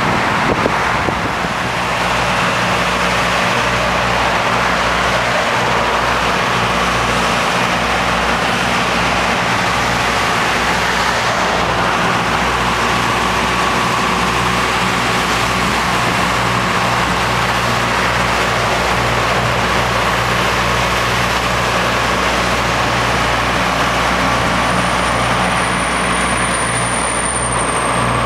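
Steady road noise of a car travelling at freeway speed: an even rush of tyres and wind over a constant low engine hum. A faint high whistle comes in near the end.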